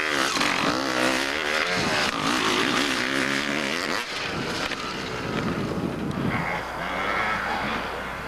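Dirt bike engines revving as bikes ride past, the pitch repeatedly rising and falling with the throttle. The sound changes abruptly about four seconds in as another bike takes over.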